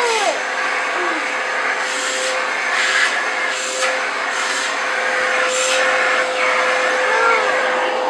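Vacuum cleaner running steadily with a constant whine, its hose used to vacuum a toddler's hair, while the toddler laughs and squeals in short bursts over it.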